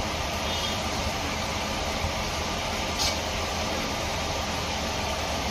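Steady low mechanical hum under an even hiss, with one brief faint tick about three seconds in.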